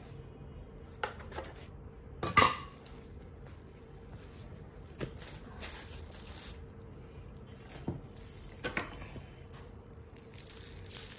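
Metal dough scraper knocking against a marble countertop as it cuts through soft dough: a handful of scattered sharp clacks, the loudest about two seconds in. Plastic wrap crinkles near the end.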